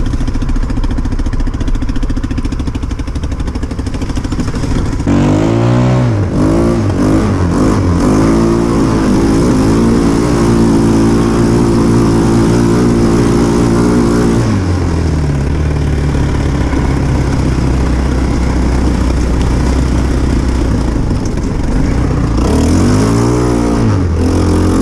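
Small 150cc quad bike engine with a freshly replaced variator (CVT). It runs low and steady for about five seconds, then revs up and down. It holds high revs for about six seconds, drops to a lower steady speed, and revs up and down again near the end.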